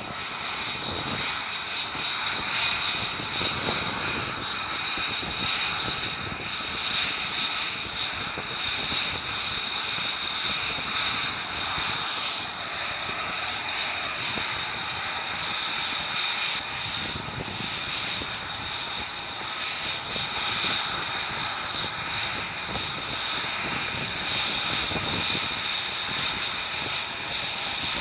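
F-35 Lightning II's single Pratt & Whitney F135 turbofan running at low taxi power: a steady high whine over a rushing noise, holding even throughout.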